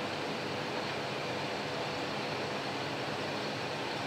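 Distant Kanto Railway KiHa 310-series diesel railcars approaching, a steady far-off engine drone blended with outdoor background noise.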